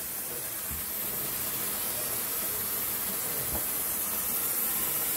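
A steady, even hiss, with two faint soft knocks.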